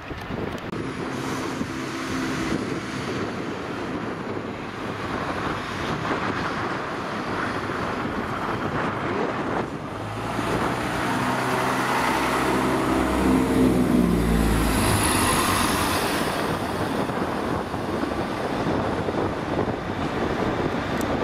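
CrossCountry Class 170 Turbostar diesel multiple unit pulling out along the platform. Its underfloor diesel engines rev up about ten seconds in with a deep throb and are loudest for several seconds, then ease back to a steady running sound as it draws away.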